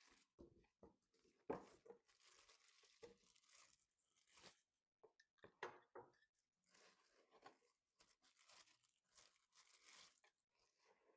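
Faint crinkling and rustling with scattered small clicks, from hands handling PC parts and plastic packaging.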